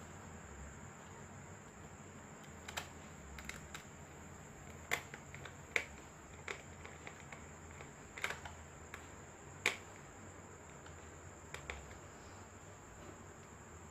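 Scattered light clicks and taps from a laptop being handled during a RAM upgrade, about ten in all at irregular intervals, over a faint steady hum and high whine.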